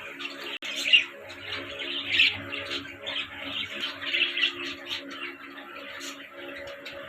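A flock of ringneck parrots chattering and chirping continuously, with louder calls about one and two seconds in, over a steady low hum.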